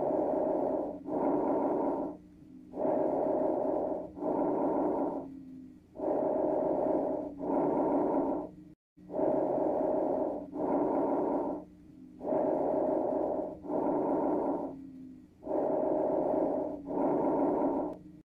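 Recorded lung sounds from chest auscultation: breathing in and out in pairs, about one full breath every three seconds. Each breath carries a steady musical tone.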